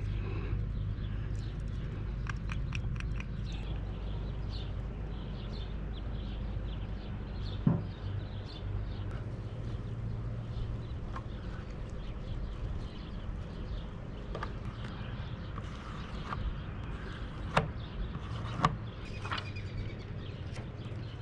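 Outdoor background: a steady low hum with faint, scattered bird chirps, broken by a few sharp knocks, once about eight seconds in and twice close together near the end.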